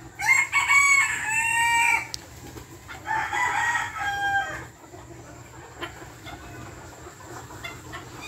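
Bantam roosters crowing twice: a loud crow in the first two seconds, then a second, softer crow about three seconds in.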